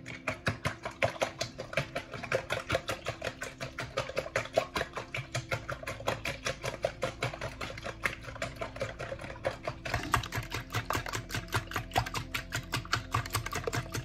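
Wire whisk beating eggs in a plastic mixing bowl: a fast, even clicking and scraping of the wires against the bowl, about four to five strokes a second, sharper from about ten seconds in.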